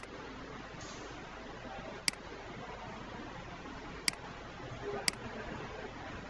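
Four sharp computer mouse clicks, one to two seconds apart, over a steady background hiss.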